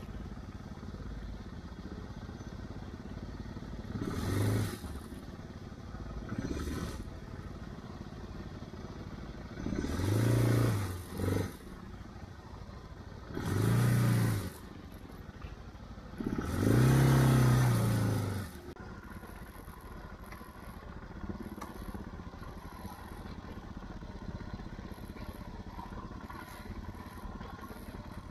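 Adventure motorcycle's engine running while ridden along a muddy clay track, with five bursts of throttle that rise and fall in pitch over a steady low running. The longest and loudest burst comes near 17 seconds in.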